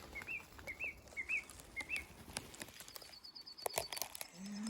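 A small bird giving a string of short, rising call notes about twice a second, then a fast high trill about three seconds in, with a few clicks and rustles in the second half.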